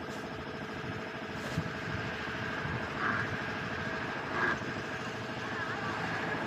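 A motor hums steadily at a constant pitch, with a sharp tap about a second and a half in and two short blips about three and four and a half seconds in.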